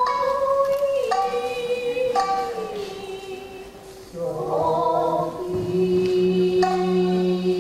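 Nagauta music: sharp shamisen plucks about once a second under a held, sliding sung line. About four seconds in, the voices settle on a low note sung together and held, with another shamisen pluck near the end.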